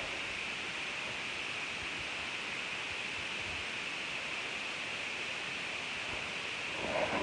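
Steady hiss, strongest in the upper-middle range, with a short throaty pitched sound near the end.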